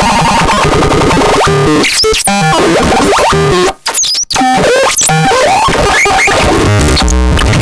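WUZBRUCHT SP-161 electronic sound device making chaotic, synthesizer-like noise: tones that jump and glide rapidly in pitch over a rough buzz, cutting out briefly twice about four seconds in.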